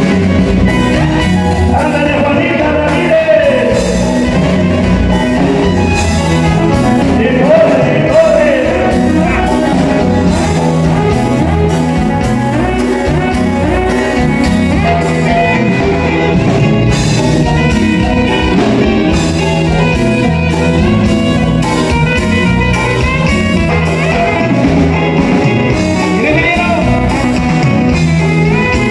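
A live band playing dance music loudly through a PA: electric guitar, bass, congas, drum kit and keyboard, with a steady beat throughout.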